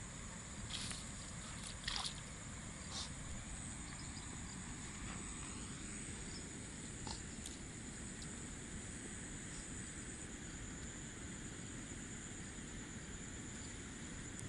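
Outdoor ambience dominated by a steady, high insect drone, with a few light clicks in the first three seconds.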